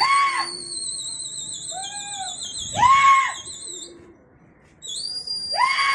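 A long, high, warbling whistle held for about four seconds, sinking slightly in pitch, then blown again near the end: a pigeon fancier whistling to a flying flock. Short harsh bird calls break in about four times, the loudest about three seconds in.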